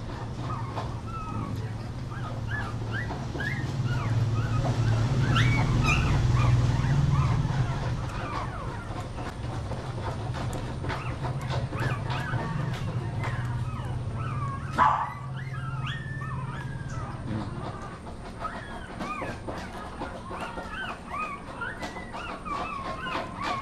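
Young Shih Tzu puppy whimpering in many short, high squeaks over a steady low hum, with one sharp click partway through.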